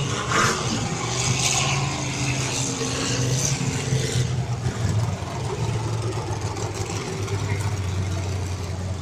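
Demolition derby cars' engines running as a steady low drone, with a burst of higher, noisier sound in the first few seconds.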